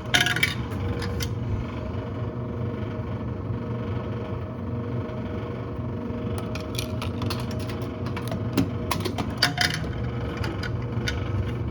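Coins clicking and clinking through a vending machine's coin slot and return, with a flurry of sharp metallic clicks at the start and another, longer run of clicks in the second half, over a steady hum.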